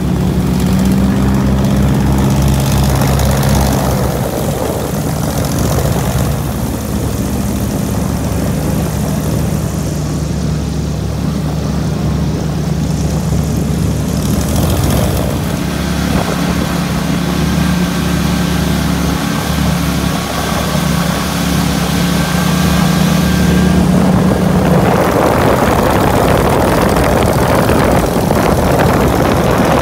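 Go Devil surface-drive mud boat motor running steadily under way, heard from aboard the boat. About twenty-five seconds in it gives way to a passing airboat's engine and propeller, a rougher, wider noise.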